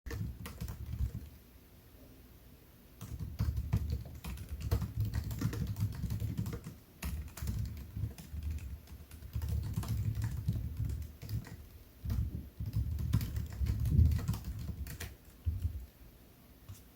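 Typing on a MacBook Air laptop keyboard: quick runs of key clicks in bursts with short pauses between them, stopping shortly before the end.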